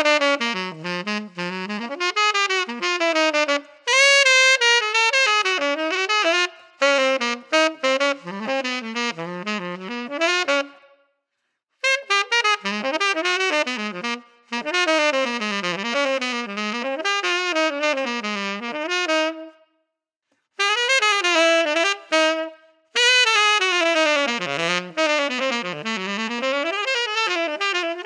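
Saxophone played through a 3D-printed SYOS signature mouthpiece, running quick jazz lines in several phrases with short breaks about eleven and twenty seconds in.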